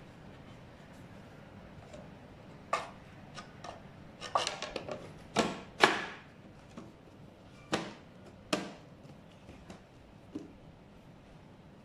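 Electric scooter's rubber-matted deck cover being lowered over the battery compartment and pressed into place, giving a string of short separate knocks and clacks, the loudest about six seconds in.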